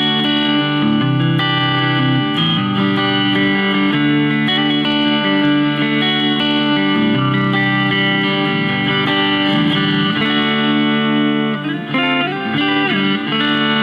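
Telecaster-style electric guitar with P90 pickups played through a clean tone: chords and single notes left to ring, with a quicker run of notes about eleven seconds in.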